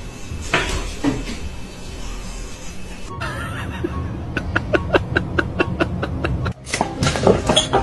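A person laughing in a run of short, rhythmic bursts, about five a second, over a steady low hum.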